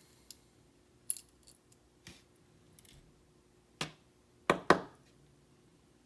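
Small sharp metallic clicks and clinks of a lock being disassembled: pins being worked out of the lock's core, about six clicks with the loudest pair about four and a half seconds in.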